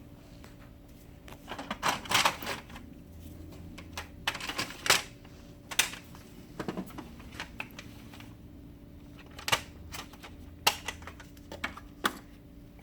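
Paper tray parts of an HP LaserJet M404-series printer being handled: irregular sharp plastic clicks and knocks, some in quick clusters, over a faint steady hum.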